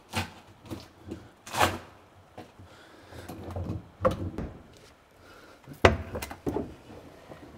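Sailboat steering pedestal being worked loose and lifted off its base: a series of sharp knocks and clunks with some scraping between them, the loudest about six seconds in.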